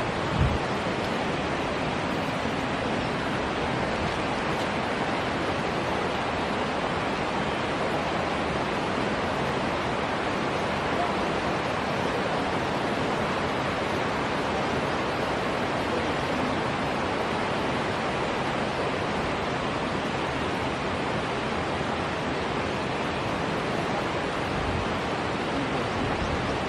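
Steady rushing of flowing water, as from a waterfall or forest stream, holding at one level, with a brief low knock about half a second in.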